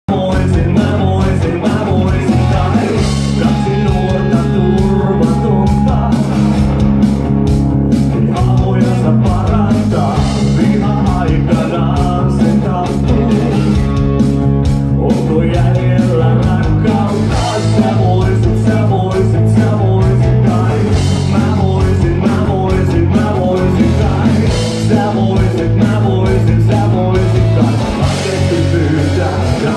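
Rock band playing live and loud: drum kit keeping a steady beat under electric bass guitar, guitar and a male lead vocal.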